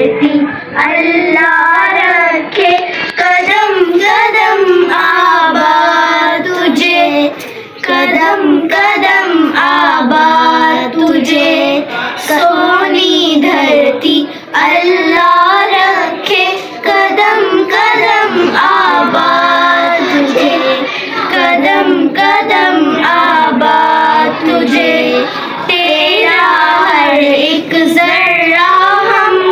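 Children singing a melody in high young voices, phrase after phrase with short breaks between lines.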